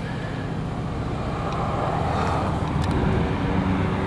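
A vehicle engine running steadily with a low rumble, getting a little louder in the middle.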